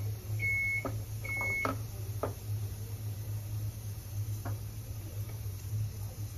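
Two short electronic beeps from a glass-top electric cooktop in the first second and a half, over a steady low hum. A wooden spatula knocks lightly against the stainless steel pan a few times as the onion and tomato purée is stirred.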